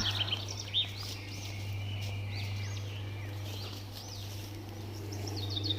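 Small birds chirping and singing in woodland: scattered short, high, arching calls over a steady low background hum.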